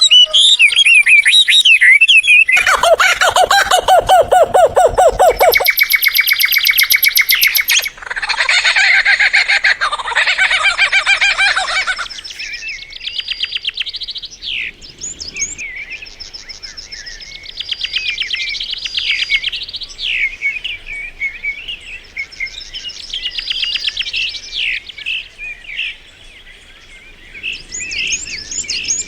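Songs and calls of several different bird species in succession, each cutting off abruptly after a few seconds as the next begins: fast warbled phrases, a loud harsh run with a low component, then rapid high trills and chirps.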